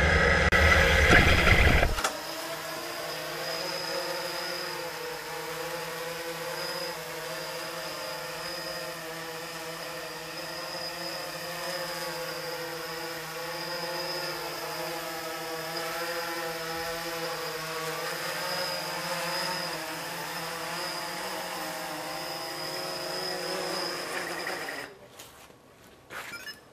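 Small quadcopter drone's propellers buzzing in flight: a steady pitched hum that wavers slightly as the motors change speed, louder and closer for the first two seconds, then steadier and more distant until it stops abruptly near the end.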